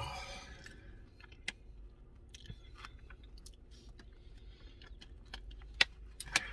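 Close-up chewing and biting of a crispy birria taco: soft wet mouth sounds with many small scattered clicks, and a couple of sharper clicks near the end.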